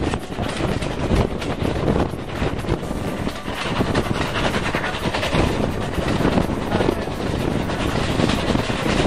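Running noise of a heritage railway train carriage in motion, heard from an open carriage window: wheels on the rails, with wind buffeting the microphone.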